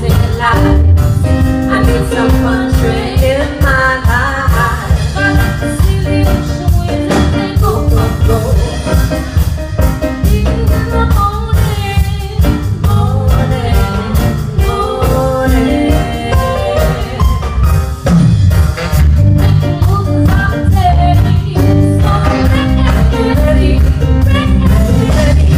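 Live band playing a song with a singer, over a steady beat and strong bass.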